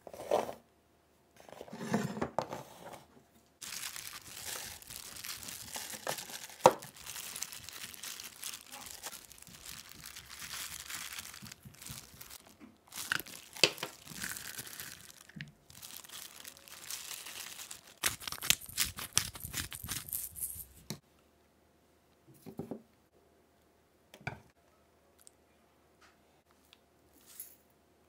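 Food packaging being torn and crinkled in long rustling stretches broken by sharp clicks, then a few light knocks and near quiet in the last several seconds.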